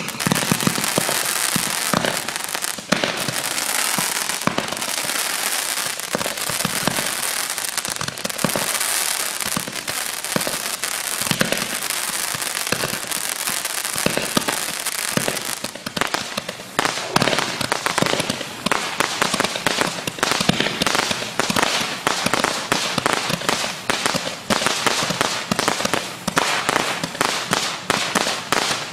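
Blazin BF004 Comet Cannon Roman candle firing shot after shot, each launch a thump, with a dense crackle from the crackling comet tails. After about sixteen seconds the crackle breaks into many sharp, separate cracks in quick succession.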